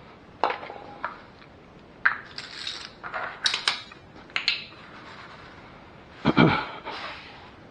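Wiping with a rag and handling things under the car: scattered light clicks and knocks with a few short rasping swipes, and one louder thump about six seconds in.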